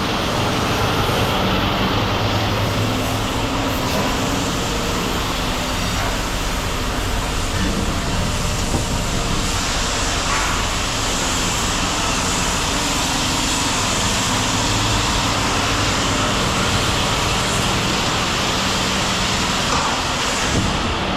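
Steady mechanical noise of an engine or machinery running, an even hiss with a low hum underneath that holds unchanged throughout.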